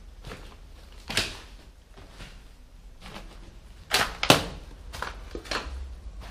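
Footsteps crunching over debris on the floor, roughly one step a second, with two louder sharp knocks close together about four seconds in.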